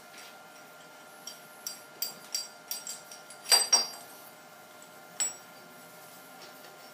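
Steel hold-down clamp parts (strap clamps, step blocks and studs) clinking and knocking together as they are fitted on a milling machine table: a run of light clinks, then two loud metallic knocks close together about three and a half seconds in, and one more just past five seconds.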